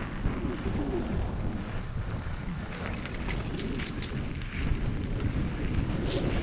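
Mountain bike riding fast down a dirt trail: wind buffeting the camera microphone over the rumble of tyres on dirt and the rattle of the bike, with scattered sharper clicks and knocks.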